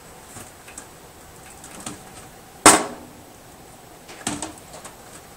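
Scattered light clicks and knocks from handling case cables and a small plastic connector being pushed onto the motherboard's front-panel audio header, with one sharp knock a little under three seconds in.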